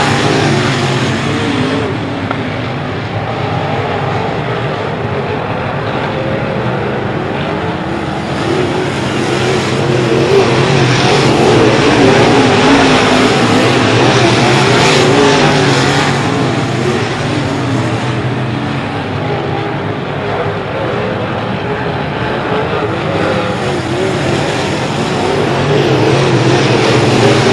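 Dirt-track race cars' V8 engines running laps on a dirt oval, a continuous loud engine note that wavers in pitch as drivers get on and off the throttle through the turns. It swells loudest a little before halfway through as the cars pass nearest.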